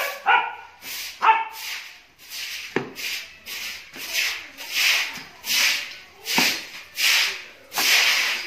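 Hoe scraping through a dry mix of cement and fine sand in a plastic mortar tub, in rhythmic strokes a little more than one a second. A dog barks twice in the first second and a half.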